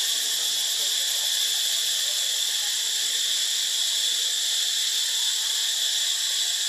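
Steady, shrill insect chorus droning without a break.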